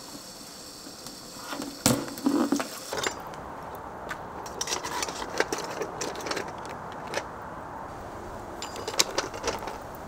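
Clicks and knocks of crab shell being handled and cut with a knife while cleaning crabs, with a sharp knock about two seconds in. A steady hiss stops suddenly about three seconds in.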